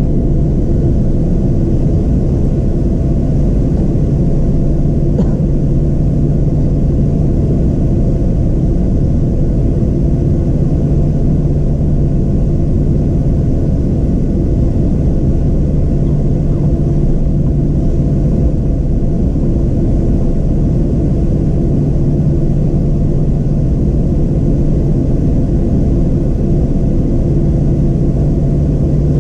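Boeing 737-700's CFM56-7B jet engines at taxi power, heard inside the cabin next to the wing: a steady low drone with a constant hum.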